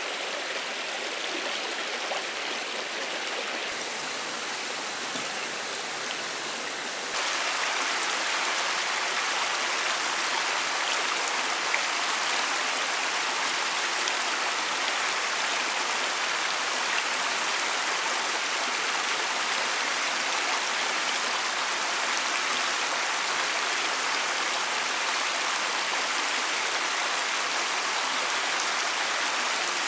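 Shallow rocky stream rushing steadily over stones and small cascades. It becomes louder about seven seconds in.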